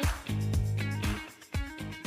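Background music with a steady beat: funky bass and guitar.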